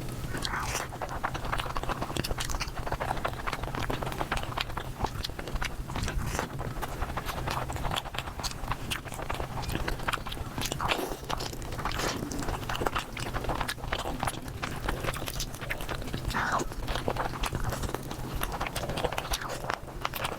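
A person chewing and crunching food close to the microphone, mukbang-style, sped up to four times normal speed, so the bites and mouth clicks come as a dense, rapid patter.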